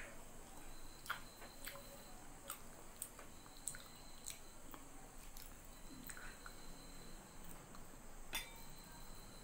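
Faint eating sounds: a person chewing rice and curry eaten by hand, with scattered wet mouth clicks and lip smacks.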